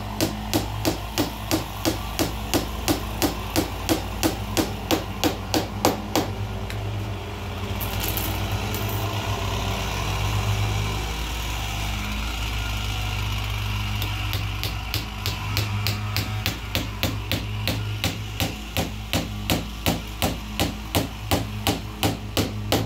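Light, rapid hammer taps, about three a second, on the wooden frame of a door's glass pane. They pause for several seconds midway, then resume at the same pace. A steady low hum runs underneath.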